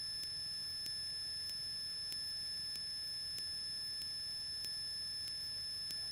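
Electrical whine in a light aircraft's intercom audio feed: several steady high-pitched tones with faint clicks repeating about every two-thirds of a second, over a faint low rumble.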